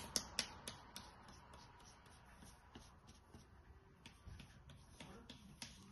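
Faint, irregular scratching and light tapping of a plastic fork pressed and dragged through wet paint on paper.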